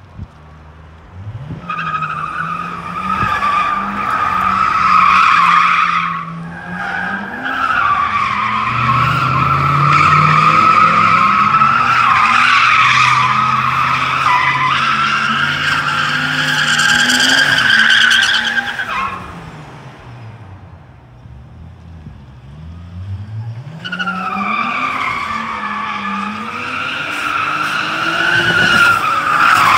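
The Nissan Skyline R34's RB25DET turbocharged straight-six revs hard while its rear tyres squeal without a break through donuts. The squeal drops away for a few seconds about two-thirds of the way through, leaving the engine revving up and down alone, then it starts again.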